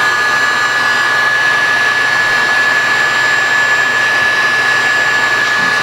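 Electric heat gun running steadily, blowing hot air to shrink heat-shrink tubing over soldered fan wire joints. A steady high whine sits over the rush of air.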